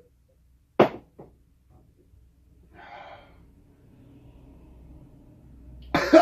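A single sharp knock about a second in, a breath out around three seconds, then a man starts coughing near the end, from the burn of ghost pepper chips.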